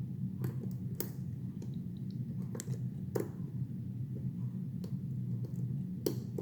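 Lock pick working the tapered pins of an ASSA 700 pin-tumbler lock: a few scattered light clicks of the pick against pins and keyway, over a steady low hum.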